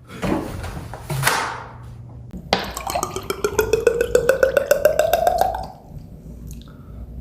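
A beatboxer making vocal sound effects in imitation of an anime: two breathy whooshes, then a rapid buzzing trill that rises in pitch for about three seconds and cuts off.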